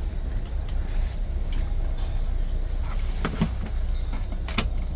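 A few light clicks and knocks of food containers being handled, over a steady low rumble.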